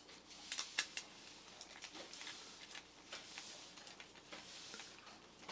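Screwdriver driving a small 6-32 screw through a 3D-printed plastic frame into a TT gearmotor's housing: faint, scattered clicks and scrapes.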